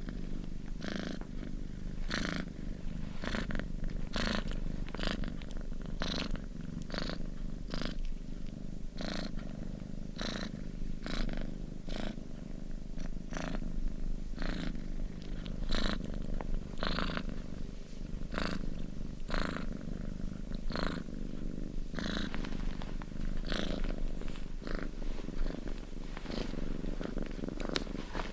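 Domestic cat purring close up: a steady low rumble, with a breathy rasp on each breath, roughly once a second.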